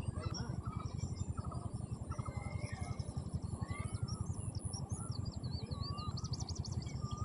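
Birds calling with short whistled chirps and glides and a quick trill near the end, over a steady low rumble.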